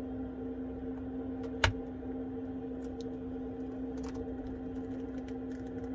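A steady low electrical hum with a single sharp click about one and a half seconds in, a tool working at a phone's screen edge.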